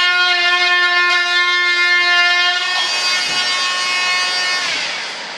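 Handheld power tool's motor running with a steady high whine, then sliding down in pitch near the end as it is switched off and spins down.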